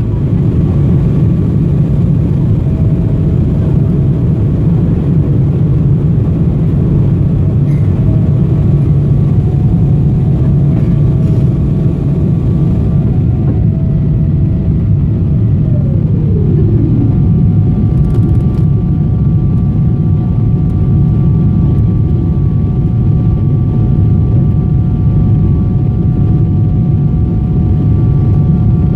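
Boeing 777-200ER engine and airflow noise heard inside the cabin: a loud, steady rumble with thin whining engine tones over it. About halfway through, one of the whines drops in pitch over about a second, then new steady whines settle in.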